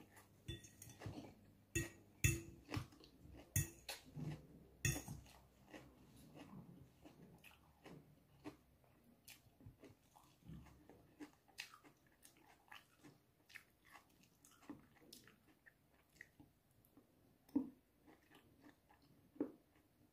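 Close-up chewing and wet mouth sounds from a person eating, with a cluster of sharp clinks in the first few seconds as a metal fork touches a ceramic bowl, and two duller knocks near the end.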